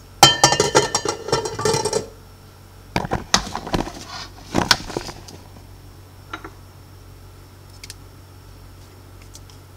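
Stainless steel mixing bowl of a stand mixer clattering: a spatula scraping and knocking against it for about two seconds, then a few more bursts of metallic clinks as the bowl is handled, about three and five seconds in. After that, only a few faint ticks.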